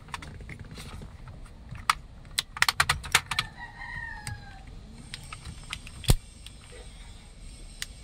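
Sharp plastic clicks and rattles as a push-button A/C switch block is pried loose and pulled out of a Mitsubishi Lancer's dashboard climate control panel, with a quick run of clicks in the middle and the loudest single click about six seconds in.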